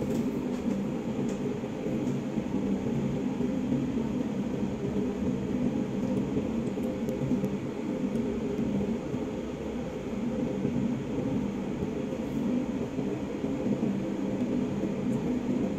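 Steady low machine hum with a rumbling hiss, unchanging throughout.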